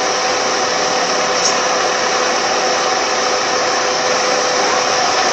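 Car air-conditioning blower fan running at a steady rush, with a faint steady whine through it.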